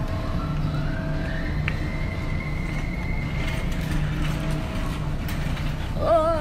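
A steady low rumble runs throughout. A faint thin tone glides upward early on and holds high for about a second and a half. Near the end a woman sings a held note with wavering vibrato.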